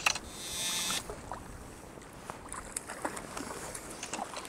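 Fly line zipping through the guides and fingers as it is stripped in by hand while playing a hooked small sea trout. The hiss lasts about a second, then a few faint ticks follow.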